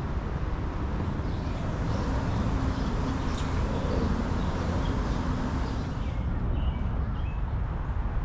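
Outdoor background noise: a steady low rumble with a few faint, short bird chirps scattered through it.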